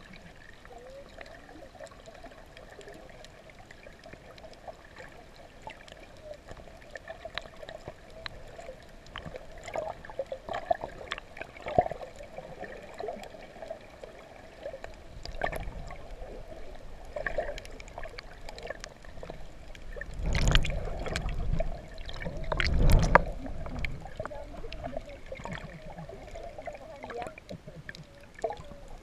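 Water heard underwater: a steady muffled wash with a faint wavering hum and scattered small clicks and crackles, and two louder low rushes of moving water about twenty and twenty-three seconds in.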